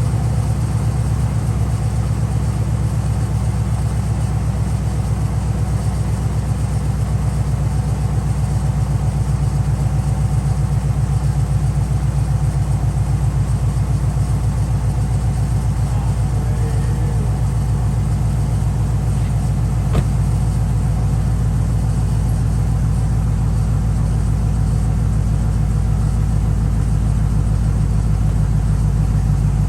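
Car engine idling steadily while warming up, a low even rumble with no revving. There is one sharp click about twenty seconds in.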